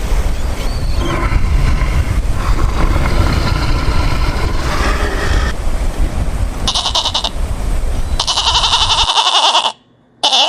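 An animal bleating several times, the later calls higher-pitched and louder, over heavy wind rumble on the microphone. The sound drops out abruptly near the end, then comes one more short bleat.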